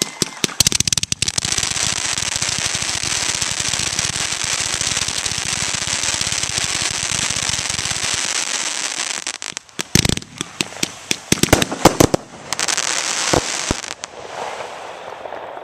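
Fireworks finale: a dense, continuous barrage of rapid crackling and popping for about eight seconds, then a run of separate loud bangs with fizzing between them, tapering off near the end.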